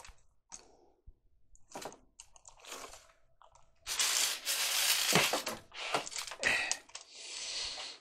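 Handling noise as the camera is picked up and moved: scattered light clicks, then a longer crinkling rustle about halfway through and a softer one near the end.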